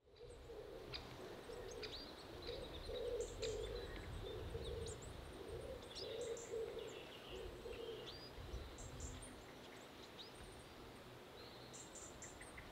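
Faint rural ambience of songbirds chirping, with short high calls and rising whistles throughout. A lower call repeats in pulses underneath for about the first eight seconds, over a low rumble.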